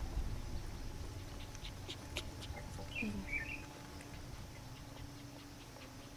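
Puppies being bottle-fed in a plastic basin: scattered small clicks and scratches, with a few short high chirps about three seconds in.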